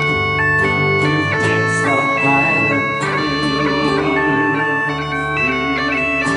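Bagpipes playing a lively melody in held, stepping notes over their steady drone, with a band's guitar accompaniment: an instrumental break in a Scottish dance tune.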